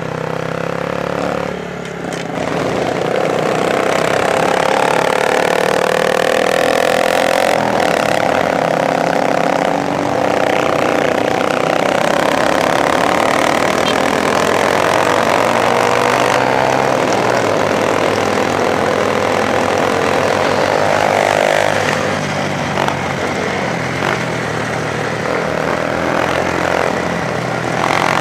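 Small motorcycle engine running on the move over a dirt trail, its pitch climbing as it accelerates and dropping back several times as the rider shifts or eases off the throttle.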